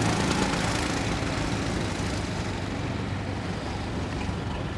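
Go-kart engines running as karts lap the track, a rough, noisy sound that is loudest at the start and grows duller and a little quieter after about two seconds.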